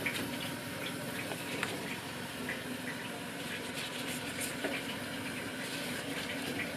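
Steady watery hiss from a pot of just-cooked, leaf-wrapped zongzi, with small wet clicks and rustles as fingers pull at the cotton strings and bamboo leaves.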